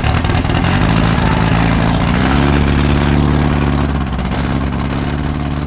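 The freshly rebuilt air-cooled flat-four engine of a 1969 VW bus running just after firing up for break-in, its revs climbing about two seconds in and easing off slightly near four seconds.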